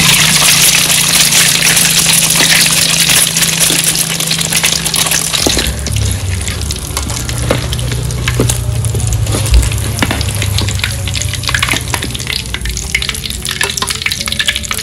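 Eggs frying in hot oil in an aluminium wok, sizzling loudly at first and then more softly. From about halfway in, a metal spatula clicks and scrapes against the wok as the eggs are turned and lifted out.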